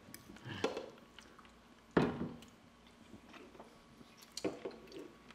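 A person eating at a table: quiet chewing and mouth sounds, with a few short knocks or clinks of cutlery, the loudest about two seconds in.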